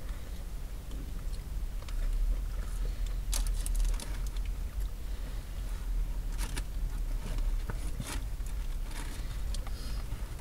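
Someone chewing fries and handling a paper food wrapper: scattered short, crisp crackles over a steady low rumble.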